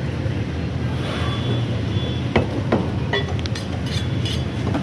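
Meat cleaver chopping raw chicken on a wooden log chopping block: two sharp chops about two and a half seconds in, then a few lighter knocks, over a steady low rumble.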